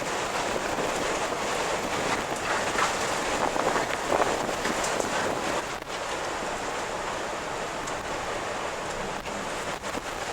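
Strong wind blowing in gusts, a rushing noise that swells in the middle and eases a little after about six seconds.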